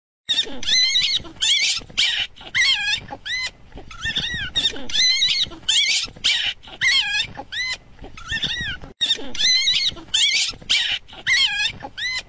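A fluffy white puppy whining in short, high squeals that rise and fall in pitch, about two a second, as it strains to climb up onto a couch.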